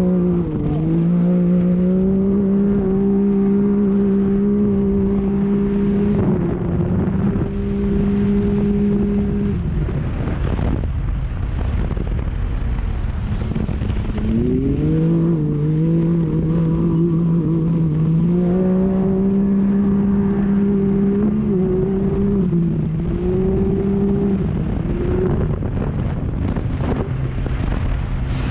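Off-road race car engine driven hard, holding a steady high pitch with brief dips and rises in revs. About nine and a half seconds in, the engine note drops away for several seconds, then climbs again and is held, over a constant rush of noise.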